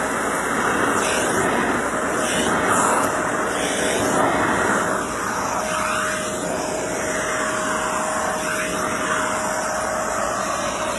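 Shark Navigator upright vacuum running with its hose and brush attachment in use: a steady motor whine under a rush of suction that swells and fades as the tool is pushed around.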